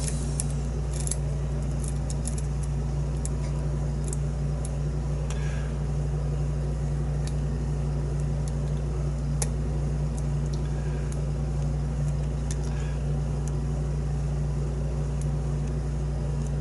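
Lock pick working inside a pin-tumbler challenge lock's keyway: scattered small metallic clicks and scrapes as the pick probes and lifts the pins. A steady low hum runs underneath.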